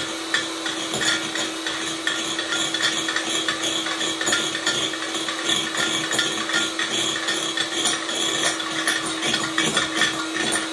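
Electric hand mixer running steadily, its beaters whipping egg whites and rattling against the sides of the bowl.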